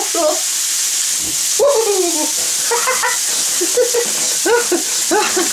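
Beef chunks sizzling in a hot frying pan, flambéed with spirits that are burning off in small flames, a steady hiss. Over it a man makes wordless, pitch-gliding vocal sounds a few times.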